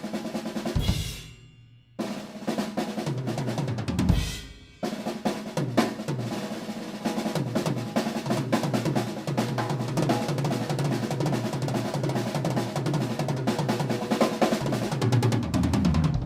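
Drum kit solo: fast rolls across the snare and toms with bass drum and cymbals. Two short breaks, each marked by a deep bass drum hit, come about one and four seconds in, followed by a long unbroken run of fast strokes.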